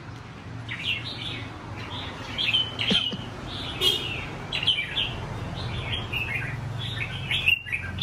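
Caged red-whiskered bulbul song: short, bright warbled phrases one after another.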